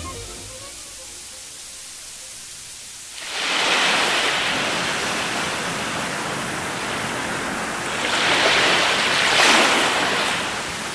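Faint tape hiss, then about three seconds in a loud rushing noise comes in, swells again about eight seconds in and eases off near the end.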